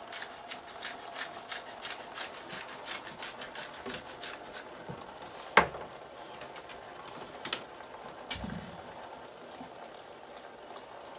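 Drained potatoes sizzling in a metal pot on the stove as the last of their water boils off; the fine crackle is densest in the first few seconds, then thins. A few sharp clicks, the loudest about halfway through.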